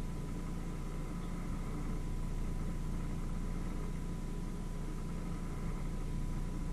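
A steady low machine hum with a thin steady whine above it, unchanging throughout.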